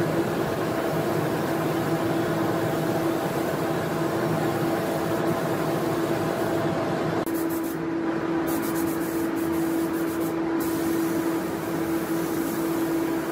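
Steady hiss of a compressed-air spray gun spraying finish onto wood panels, over a constant motor hum. About seven seconds in, the high part of the hiss thins out for a few seconds while the hum carries on.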